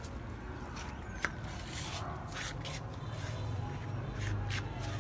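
Labrador puppy rummaging at a potted plant wrapped in plastic: a few short, scratchy rustles and one sharp click about a second in, over a steady low hum.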